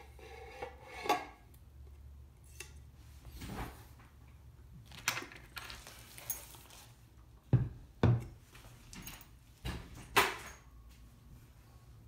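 Handling noises on a wooden desk: scattered knocks and clatters with the rustle of a crinkly plastic anti-static sheet as the cylindrical 2013 Mac Pro is lifted off it and set down. The loudest knocks are a pair a little past the middle and another about ten seconds in.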